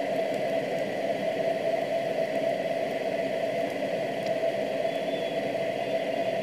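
Steady whirring background noise with a constant hum, unchanging throughout.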